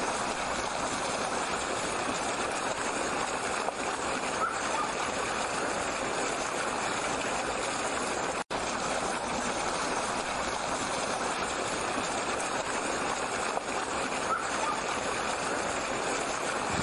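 Steady rushing, hissing noise of water, even throughout, with a momentary dropout about halfway through.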